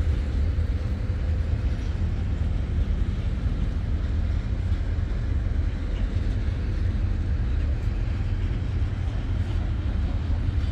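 Intermodal freight train wagons rolling past with a steady low rumble.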